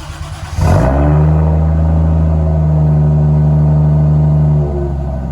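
Turbocharged Lexus IS200's 1G-FE inline-six with a straight-pipe exhaust being cranked on the starter and catching about a second in. Its revs rise quickly to a steady, loud fast idle, then drop a little near the end.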